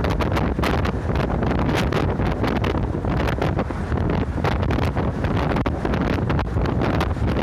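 Interior of a moving route bus: steady engine and road rumble with wind buffeting the microphone, and frequent rattles and knocks from the bus body.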